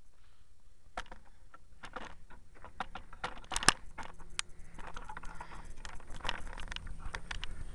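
Irregular metallic clicks and clinks of hand tools and hardware being handled, with a sharper knock about three and a half seconds in.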